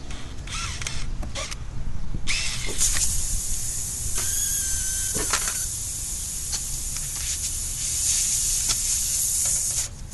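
Air hissing steadily at a car tire for about seven and a half seconds, starting about two seconds in. A few short scraping bursts come just before it, and a thin squeal sounds briefly in the middle.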